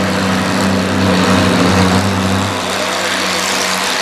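Antique pulling tractor's engine running steadily as it pulls a weight-transfer sled along a dirt track. Its low note drops away about two and a half seconds in.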